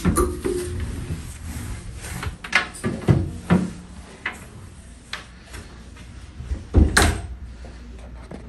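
Wooden closet door being opened and shut: a series of knocks and bumps, the loudest about seven seconds in.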